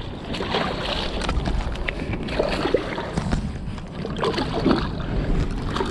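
Wind buffeting the microphone over lapping river water, a steady noisy rush with a low rumble.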